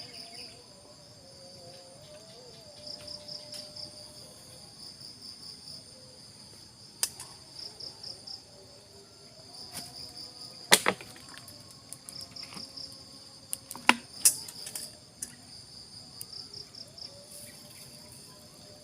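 Forest insects trilling steadily in a high, pulsing chorus, with a few sharp knocks or clicks in the middle.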